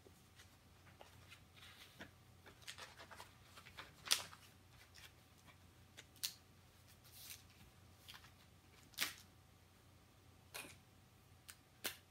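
Hands handling a sheet of paper on a plastic LEGO baseplate and frame: scattered light rustles and short sharp taps, the loudest about four and nine seconds in.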